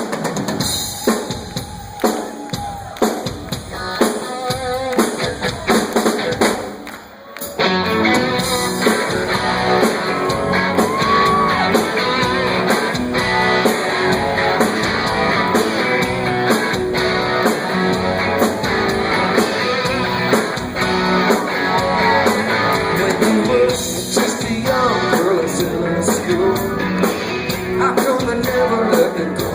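Rock song: a drum beat alone at first, then the full band with electric guitar and bass comes in about seven seconds in.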